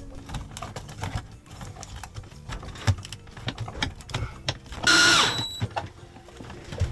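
Cordless drill-driver running in one short whine of under a second, about five seconds in, its pitch dropping as it stops. Before it, scattered clicks and knocks of hands working on the hatch hardware.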